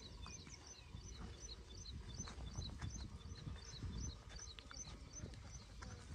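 A small bird chirping over and over, short high notes about three a second, over a low uneven rumble.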